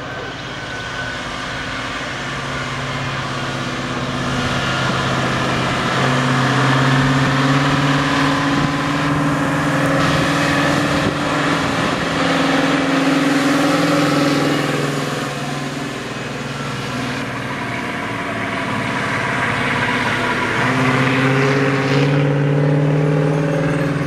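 Fiat 190F35 tipper truck's diesel engine working hard uphill as the truck approaches and passes close, a loud racket. The engine note rises about six seconds in, sags briefly about two-thirds of the way through, then climbs again as the truck goes by.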